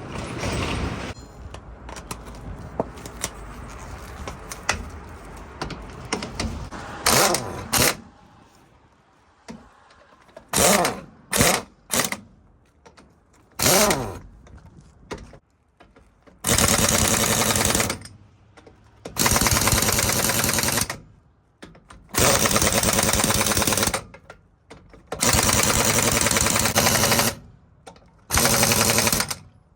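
Impact wrench hammering in repeated bursts, short ones first, then five longer bursts of about two seconds each: lug nuts being run onto a truck wheel.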